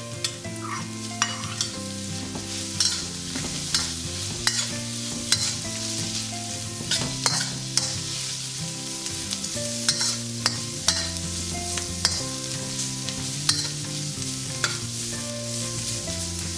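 Shrimp, onion and chili sizzling in hot oil in a steel wok as they are stir-fried, with repeated sharp clinks and scrapes of a metal spatula against the wok.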